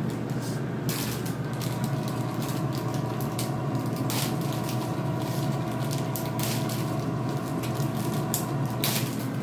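Power AirFryer XL running its fan while preheating at 400°F: a steady hum with a whine that comes in about a second and a half in. Scattered clicks and knocks sound over it.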